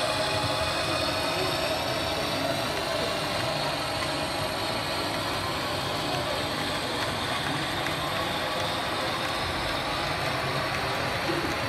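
Steady running noise of model freight trains rolling along a layout's track, under the even background din of a busy show hall.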